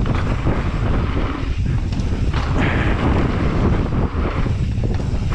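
Wind rushing over the microphone of a mountain biker's camera at speed, over the rumble of knobby tyres rolling on a packed-dirt trail and short knocks and rattles as the bike goes over bumps.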